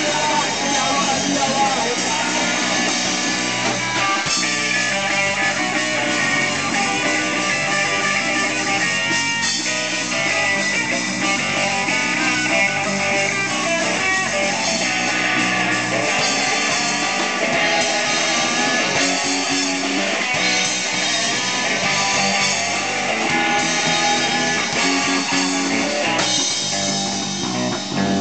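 Live rock band playing: electric guitar, bass and a drum kit, mostly without singing, with a short dip in loudness near the end.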